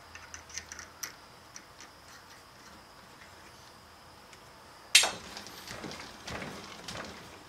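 Small machined steel parts clicking and clinking as they are handled and fitted together by hand. Light ticks come in the first couple of seconds, then a sharp metal clink about five seconds in, followed by a short run of scraping clicks.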